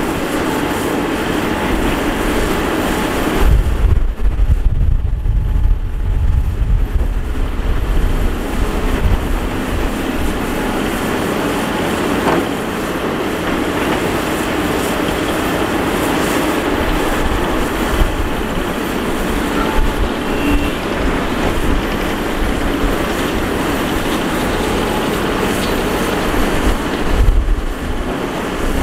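Matador ME315 hydraulic excavator working as its bucket digs into a dirt bank: a steady diesel engine and machine noise, with heavier low rumbling about four seconds in and again near the end.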